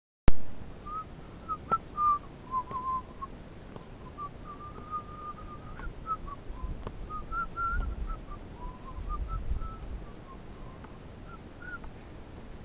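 A person whistling a wandering tune of short notes that rise and fall, with low rumbles of wind or handling on the microphone partway through.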